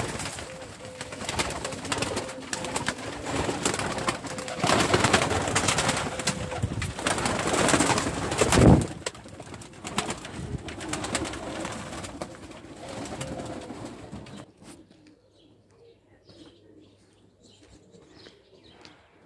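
Ödemiş dolapçı pigeons flapping and clattering their wings as they take off and flutter around a small loft, with pigeons cooing. The wing noise is loudest a little under halfway through and stops suddenly about three-quarters of the way in, leaving only faint scattered sounds.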